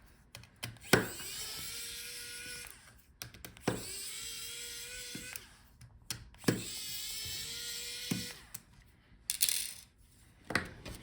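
Electric precision screwdriver backing out small laptop screws: three steady runs of about two seconds each, each starting with a click, followed near the end by a few sharp clicks of small parts and tools being handled.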